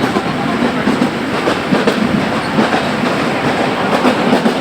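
Train running along the track: a steady rumble with the clickety-clack of wheels over rail joints.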